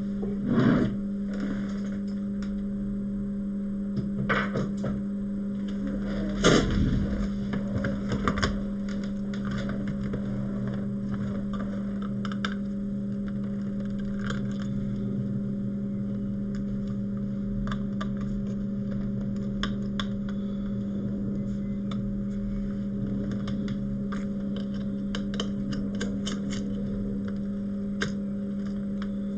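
A steady electrical hum with light clicks and taps of small tools on a phone as it is opened for repair. A few louder handling knocks come in the first several seconds, and quick light ticks come more often later on.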